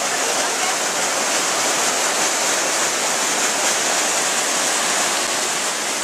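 Rushing water of a waterfall and its rocky stream, a steady hiss with no break.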